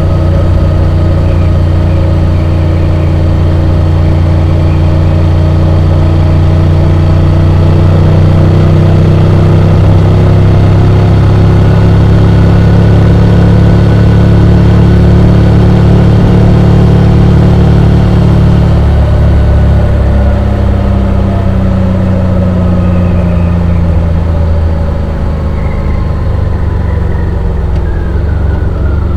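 Honda X-ADV 750's parallel-twin engine running under way, heard from on board. The engine note holds fairly steady, rising slightly, eases off about two-thirds of the way through and falls in pitch near the end.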